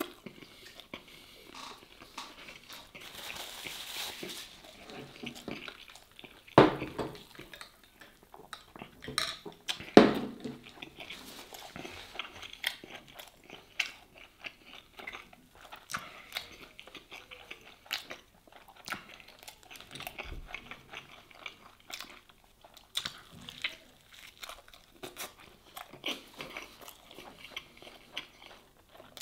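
A person biting and chewing a toasted cheese sandwich, with crisp crunching of the bread throughout. There are two louder, sharper crunches about seven and ten seconds in.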